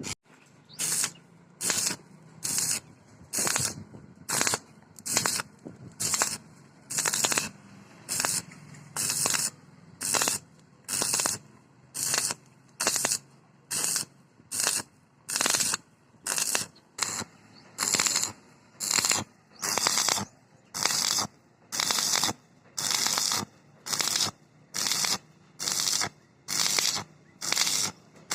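Stick-welding arc with a 6013 electrode crackling in short, evenly spaced bursts, a bit more than one a second, as the welder lays stitch welds on the steel tube of a door frame.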